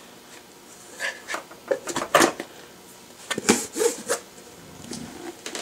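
Kitchen utensils and plastic containers being handled on a wooden countertop: a knife set down and lids and jars moved, making a string of clicks, knocks and short scrapes about one, two and three and a half seconds in.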